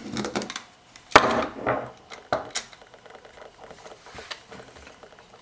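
Small metal parts handled against the plastic body of a pressure switch being reassembled: a few sharp clicks and taps, the loudest about a second in, then fainter ticks.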